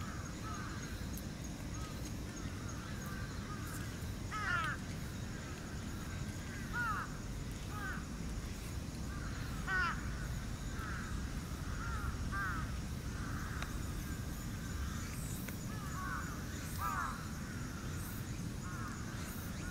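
Shiba Inu puppies about four weeks old giving short, high squeaking whines while they nurse. The whines come irregularly, some in quick pairs or threes, and the loudest are about four and ten seconds in, over a steady low background hum.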